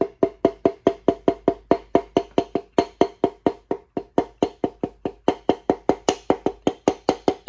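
A piston being tapped down into a Gen 3 LS V8's cylinder bore through a ring compressor: a steady run of light, even hammer taps, about five a second, each with a short hollow ring. The taps drive the piston and its compressed rings past the compressor into the bore while the rod is guided onto the crank journal.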